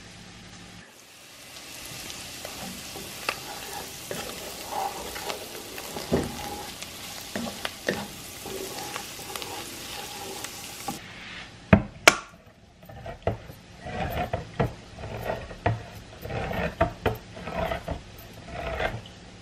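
Chopped vegetables sizzling in a pan while a wooden spoon stirs them. The sizzle stops suddenly about eleven seconds in; two sharp clicks follow, then a hand-crank can opener turning around a can with an even run of strokes, two or three a second.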